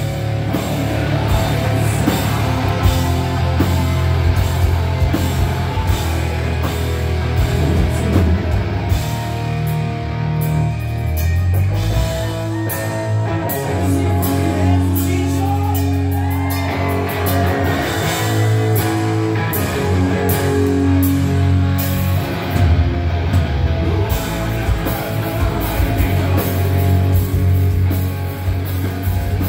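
Heavy rock band playing loud and live, with distorted electric guitars, bass guitar and drum kit.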